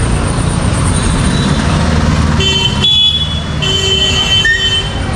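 Vehicle horn honking twice, a short blast then a longer one, over the steady rumble of motor traffic in a busy street.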